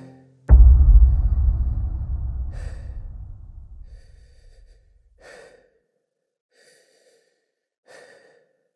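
A sudden deep boom hits about half a second in and fades out slowly over several seconds. Then come slow, muffled breaths through a gas mask respirator, about five of them, a second or so apart.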